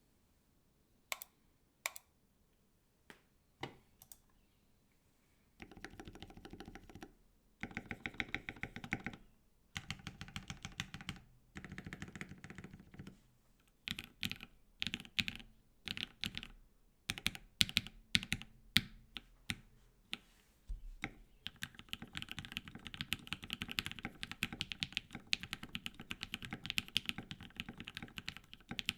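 Think6.5 V2 LE custom mechanical keyboard, with lubed and filmed JWK Dogikon linear switches, an FR4 plate and PBT keycaps, being typed on. A few separate keystrokes come in the first four seconds, then short bursts of fast typing, a run of single spaced presses, and continuous fast typing over the last eight seconds.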